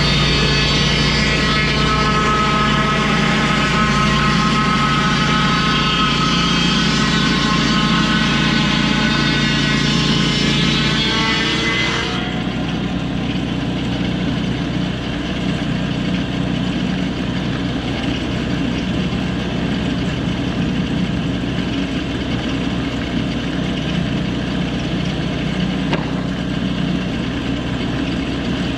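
Lucas Mill portable swing-blade sawmill's engine running hard as its circular blade saws along a blackbutt log, with a high whine over the engine. About twelve seconds in, the cutting noise stops abruptly and the engine drops to a steady idle.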